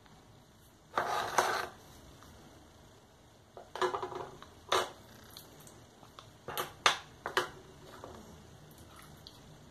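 Handling sounds of a white plastic spoon scraping and knocking in a cup of tuna-mayonnaise filling: a scraping rustle about a second in, more scrapes and knocks around the middle, then a few sharp clicks.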